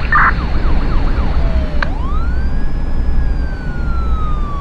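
Police siren: fast yelping sweeps fade out, then about two seconds in a single long wail rises quickly and falls slowly, over a steady low rumble of vehicle noise.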